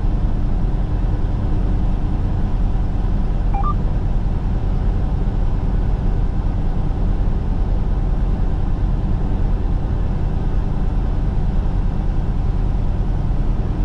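Steady drone of a semi truck's engine and road noise heard from inside the cab while cruising on the highway.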